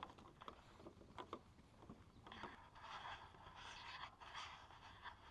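Faint footsteps on a wooden boardwalk: a few light knocks and clicks in the first two seconds. After that comes a faint, patchy rushing hiss.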